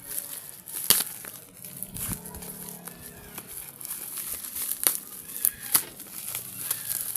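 Packaging crinkling and tearing as a parcel is opened, with a few sharp clicks, one about a second in and a cluster near the end.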